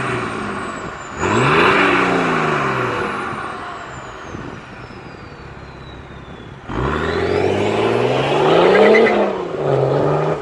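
BMW 335d E90's twin-turbo diesel straight-six revving twice: a quick rise and fall about a second in, then a slower climb from about seven seconds in that peaks near nine seconds and drops back, with quieter running in between. A faint high whistle slides slowly down after the first rev and rises again with the second.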